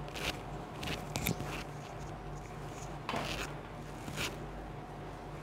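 About six short snips and rustles: wool yarn being handled and the crochet thread cut with scissors.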